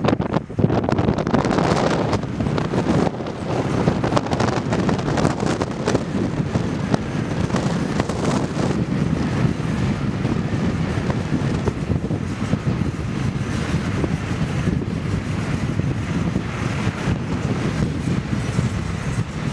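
Steady road noise of a car driving along, with wind rushing over the microphone, a little louder in the first few seconds.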